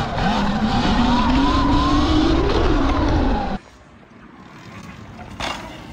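Electric dirt bike being ridden, its motor whine rising and falling in pitch over a heavy rushing noise. The sound cuts off abruptly about three and a half seconds in, leaving a quieter background with a single knock near the end.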